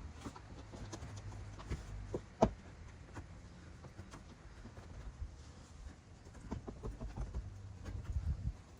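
Hand polishing on car paint: a pad or cloth rubbing polishing compound over a touched-up scratch, with irregular small taps and clicks and one sharper click about two and a half seconds in.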